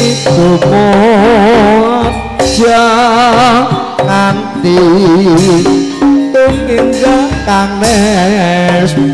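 Javanese gamelan music for tayub: a female singer's voice wavers with heavy vibrato over steady metallophone tones and hand-drum (kendhang) strokes.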